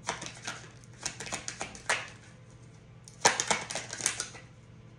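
Tarot cards being shuffled and handled: irregular runs of quick papery clicks and flicks in bursts, the loudest a little past the middle.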